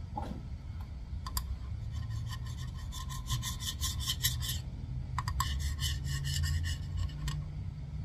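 A gasket scraper scraping old gasket material off the metal injection pump mounting face of a 6.5 diesel, in quick repeated strokes of about five a second, two runs with a short pause between them. A steady low hum runs underneath.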